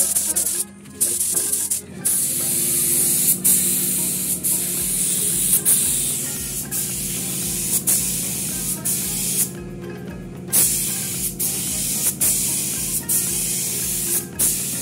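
Paint being sprayed: a steady hiss, cut off briefly a few times as the spray is stopped and started again, with the longest pause around ten seconds in.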